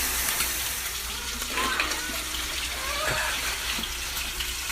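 A steady rushing hiss like running water, with faint voices in the background.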